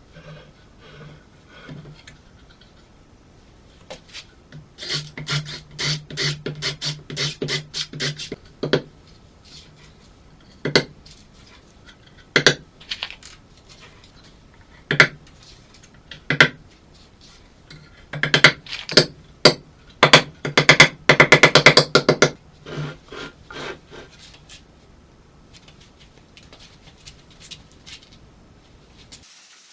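Sharp knocks and clicks: a fast run of them about five seconds in, a few single knocks, then a denser, louder run about two-thirds of the way through.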